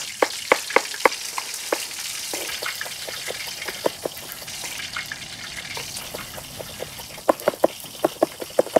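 Skewered tiger prawns deep-frying in hot oil in an aluminium uruli: a steady sizzle with frequent sharp pops and crackles. The pops come thickest in the first couple of seconds and again near the end.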